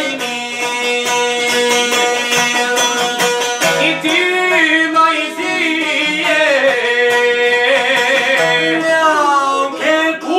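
Albanian folk song: two long-necked plucked lutes strum steady held notes, and a man's voice comes in about four seconds in with long, wavering ornamented notes that slide down near the end.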